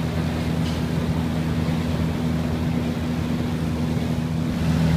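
Windy/Rita industrial axial exhaust fan running steadily: a continuous rush of air over a steady low hum.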